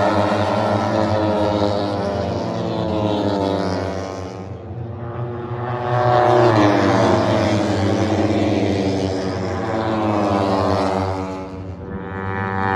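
MotoGP bikes' 1000 cc four-cylinder racing engines passing at speed in a group, each engine note falling in pitch as it goes by. The sound fades briefly and swells again about six seconds in as more bikes come past.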